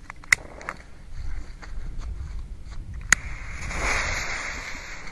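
Torch lighter clicking, then a hiss just after three seconds in as the fuse of a Viper 1 firecracker is lit. The hiss swells and then fades.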